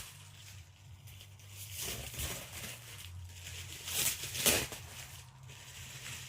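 Packing material being cut and pulled open by hand: rustling and tearing, with louder bursts about two seconds in and again past the middle.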